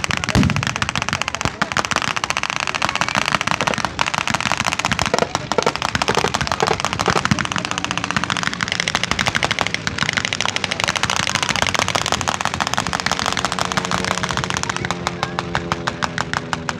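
Long continuous bursts of rapid machine-gun fire, simulated for a staged air battle. Toward the end a propeller aircraft's engine drone rises underneath the firing.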